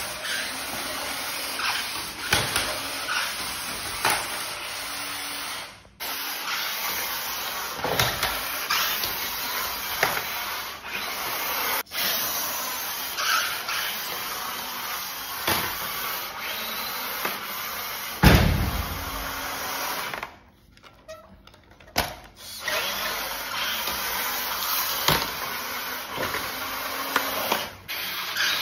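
MN128 RC crawler with a 540 35T brushed motor on a Hobbywing 1060 ESC and 2S LiPo, driving on a tiled floor: a steady electric motor and drivetrain whir with scattered knocks and clatters. A heavy thump comes about eighteen seconds in, and the sound drops almost to nothing for a moment a few seconds later.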